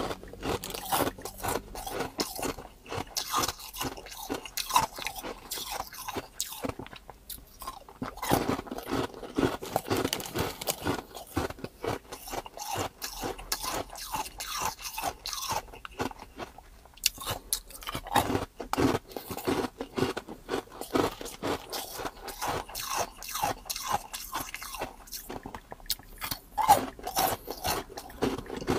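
A person crunching and chewing hard ice cubes close to the microphone: dense, rapid cracking bites, with a few short pauses between mouthfuls.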